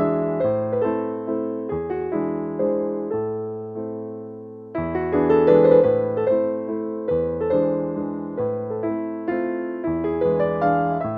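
Background music: a solo piano melody over repeating chords, with a brief dip about four seconds in before the chords come back in full.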